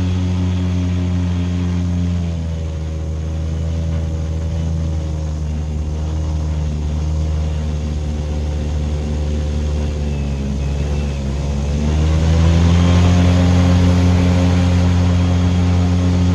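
Airboat engine and propeller running, dropping in pitch about two seconds in, wavering around ten seconds, then rising again and running louder from about twelve seconds.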